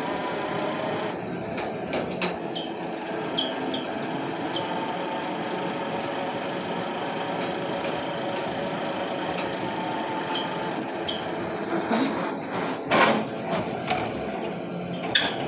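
Hydraulic borewell pipe-lifting rig running steadily, its engine and hydraulics making an even mechanical drone, with scattered sharp clicks and knocks and a cluster of louder knocks near the end.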